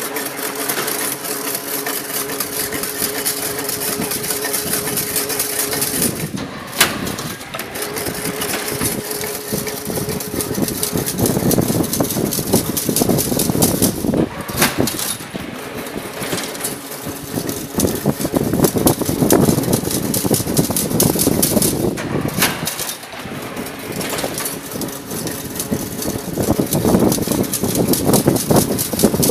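Chain link fence-making machine running, a steady motor hum with fast rattling of the wire. It breaks off briefly with a sharp click roughly every eight seconds, three times, as each cycle ends.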